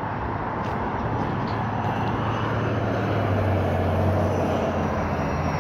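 Steady low engine rumble over outdoor street noise, growing a little louder in the middle.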